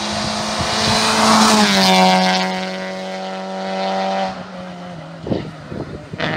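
Hill-climb race car engine at high revs passing close by, its pitch dropping as it goes past, then holding a steady high note before cutting off suddenly about four seconds in.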